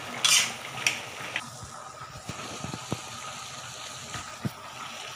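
Tomato pieces sizzling in hot oil in a frying pan. There are several sharper spitting bursts in the first second and a half as pieces drop in, then a steady sizzle.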